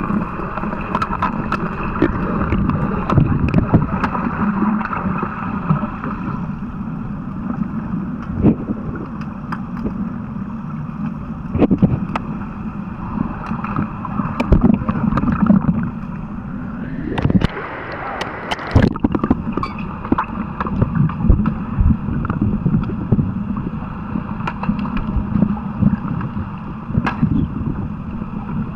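Underwater pool sound during an underwater hockey game: a steady muffled water noise with frequent sharp clicks and knocks from sticks and the puck on the tiled pool bottom. A louder rushing noise lasts about two seconds roughly two-thirds of the way through.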